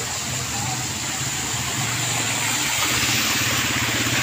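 Motorcycle engine of a sidecar tricycle running as it drives through shallow floodwater, getting louder from about three seconds in, over a steady hiss of water.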